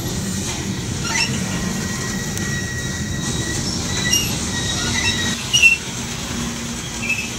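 Loaded coal train's cars rolling slowly past, with a steady low rumble from the wheels and rail and high metallic squeals that come and go. One brief, louder screech comes about five and a half seconds in. The train is braking to a stop for a red signal.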